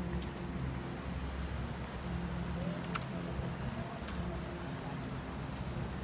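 Steady low engine drone, with a faint rising whistle-like glide in the middle and a few faint clicks over the outdoor background.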